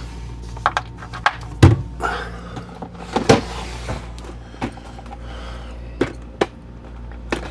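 Handling of a coffee maker's power cord and plug: scattered clicks, knocks and rustling, the loudest knock about a second and a half in, over a steady low hum.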